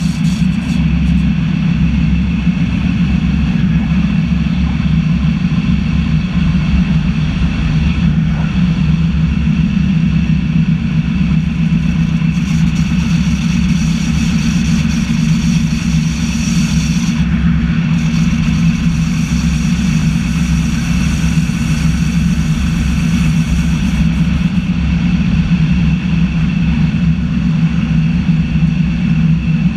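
Electric narrow-gauge Zentralbahn train running steadily along the track, heard from the driver's cab. A constant deep hum and rumble lie under several steady high tones, and the high tones drop out briefly a little past halfway.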